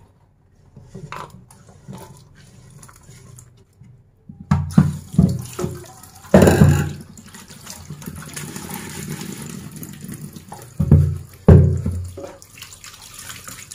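Kitchen tap running into a stainless steel sink from about six seconds in, with hands rinsing under the stream. Several loud, deep knocks and bumps come from things being handled at the sink, twice in the middle and twice near the end.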